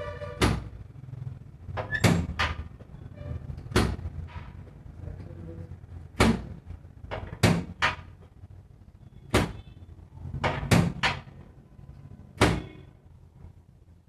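Chiropractic adjustments: about a dozen sharp clacks at irregular intervals, some in quick pairs or triples.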